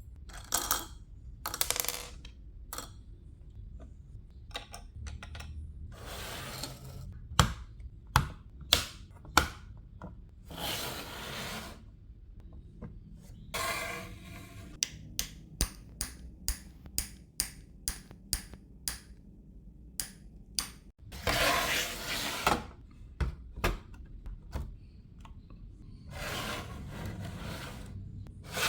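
Plastic Lego bricks being handled and pressed together: a scattered run of sharp clicks and taps, broken by several longer scraping, shuffling stretches as pieces are moved about.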